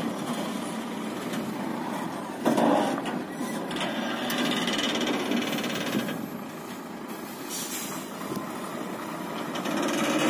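Diesel engine of a DAF CF 6x4 tractor unit running steadily, with a short louder burst about two and a half seconds in and a hiss from about four to six seconds in.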